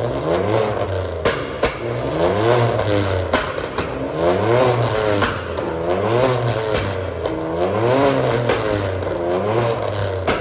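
Catless, straight-piped 2015 Ford Taurus Limited exhaust, revved in repeated blips with the engine rising and falling in pitch about every two seconds. Sharp pops come as the revs drop, from a pops-and-bangs tune.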